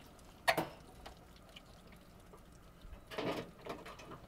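A sharp knock about half a second in as the RV refrigerator's outside access door is handled, followed by faint scattered ticks and a short scuffle about three seconds in.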